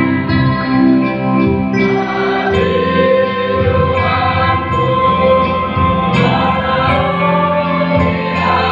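Mixed choir of men and women singing a hymn in parts, holding long chords, accompanied by an electric bass guitar.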